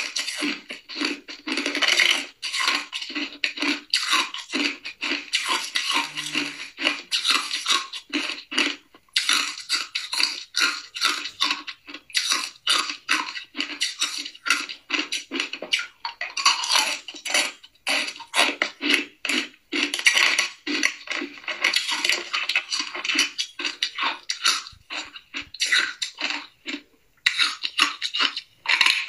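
Hard ice cubes being bitten and chewed close to the microphone: a dense, continuous run of sharp crunches and crackles. Now and then a spoon clinks against the ice as cubes are scooped from a plastic tub.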